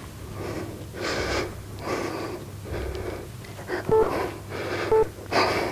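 A woman breathing hard and fast while holding a side plank, each breath a short rush of air less than a second apart. Near the end come two short electronic countdown beeps about a second apart.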